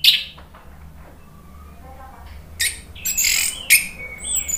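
Caged orange-headed thrush in loud full song. One loud note at the start, a pause of about two seconds, then a run of harsh, squawking notes and a high whistled note near the end.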